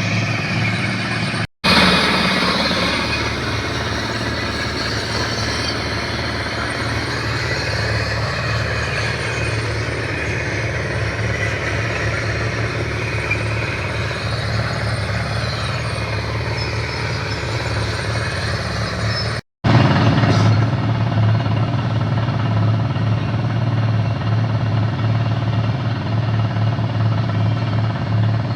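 Diesel engine of a Tata Signa 2830 dumper truck running steadily with a deep drone, broken twice by abrupt dropouts where the recording is cut; after the second cut the low drone is stronger.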